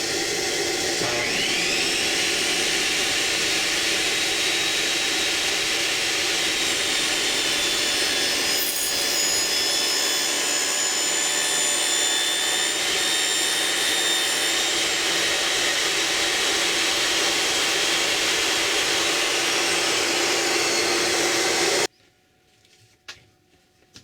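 An electric power tool running steadily at full speed. Its motor whine climbs as it spins up about a second in, and the noise stops abruptly near the end.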